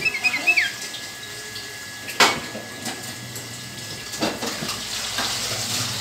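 White-eared bulbul giving a quick run of short chirps in the first second, the last one sliding down in pitch. Two sharp clicks follow, about two and four seconds in, over a steady hiss.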